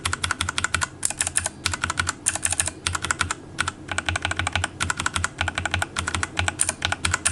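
Fast typing on a Keychron C1 hot-swap mechanical keyboard fitted with Gateron switches, in a sound test of the blue and brown switches: rapid runs of keystroke clicks with a few brief pauses.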